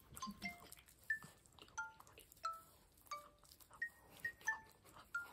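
Soft chime-like background music: light plinking notes at scattered pitches, about two a second.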